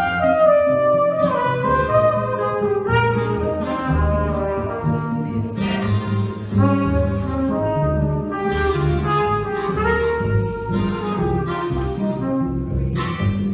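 Small acoustic jazz group playing: trumpet carries a melodic line over a plucked upright bass and archtop guitar chords.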